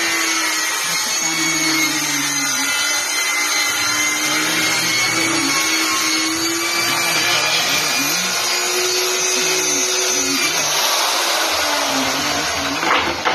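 Corded handheld electric power tool running continuously as it works along a plywood edge, its motor pitch dipping and recovering under load and falling off near the end.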